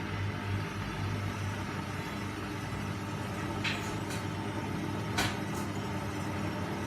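Washing machine running with a steady motor hum, broken by four sharp clicks in two quick pairs past the middle: the clicking noise the machine makes during its wash and spin.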